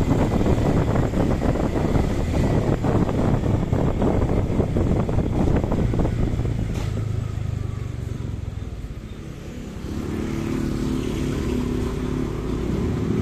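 Motorcycle ride on a paved street: steady engine and road noise, with wind rumbling on the microphone. About ten seconds in, a steady engine hum with a clear pitch joins as the road opens onto a main street with passing traffic.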